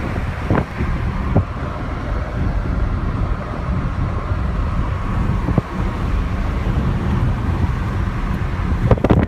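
Steady road and wind noise inside a car driving at speed across a suspension bridge, with air rushing in through an open window. A brief louder burst comes near the end.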